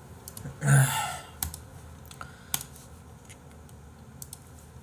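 Scattered computer keyboard and mouse clicks, a few sharp taps spread over several seconds. About a second in there is a loud breathy exhale.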